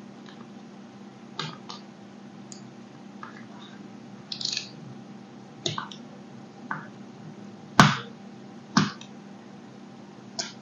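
A thin blade slicing through moulded kinetic sand, making short, crisp, irregularly spaced clicks and soft crunches as it cuts and touches the board. The two loudest clicks come about a second apart late on.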